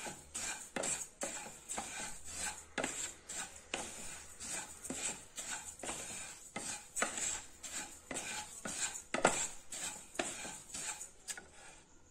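Flat wooden spatula stirring and scraping fennel and carom seeds around a dry non-stick pan as they are roasted: a steady run of rustling scrapes, about two to three strokes a second.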